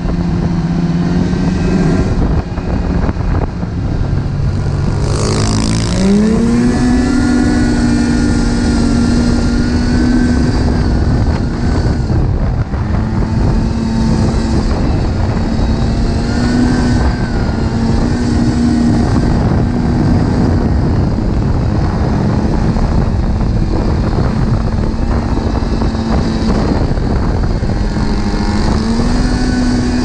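Snowmobile engine running under way, climbing in pitch as it accelerates about five seconds in, then holding a steady high note with a few brief dips as the throttle eases. Wind noise on the microphone.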